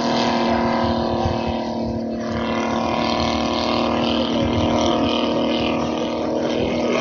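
Engine of a giant-scale radio-controlled Curtiss JN-4 Jenny model biplane running steadily in flight, a continuous drone holding an even pitch.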